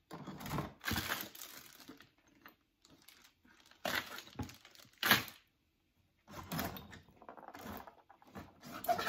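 Items being rummaged through in a cardboard box of Christmas decorations: a plastic bag of ornaments crinkling, light strings and wicker baskets shifting and knocking together. It comes in several separate bursts of handling, the sharpest about five seconds in.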